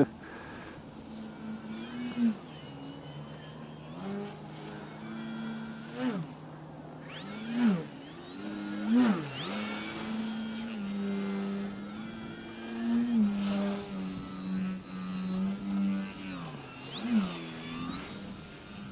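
Electric motor and propeller of a 32-inch Twisted Hobbys MXS-C foam RC aerobatic plane buzzing in flight. Its pitch steps up and down with the throttle and swoops sharply down several times as the plane passes close by.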